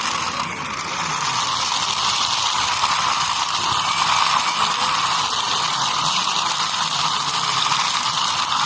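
Small toy vehicle's motor and gears whirring steadily.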